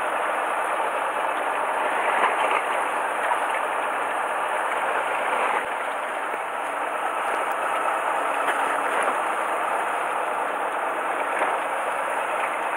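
Fishing boat's engine running, a steady, unchanging drone.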